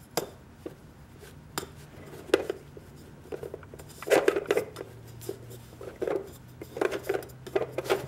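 Light clinks, taps and scrapes of camping stove parts being packed into a small aluminum cook pot: scattered knocks, with busier clusters around the middle and again near the end.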